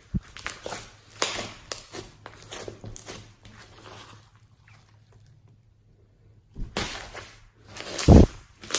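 Slime being squeezed and pressed by hand: irregular sticky crackles and pops, a pause of about two seconds, then louder squishes with a heavy thud near the end.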